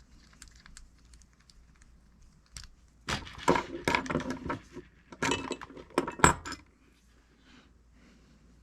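Small metal tools and parts clinking and rattling in two bursts of sharp, ringing clicks, about three seconds in and again around five to six and a half seconds, as the handle screw of a fishing reel is worked on.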